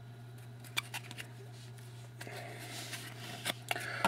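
Trading cards being handled and slid against one another: a few sharp clicks about a second in, then a dry rustling slide with several snaps near the end.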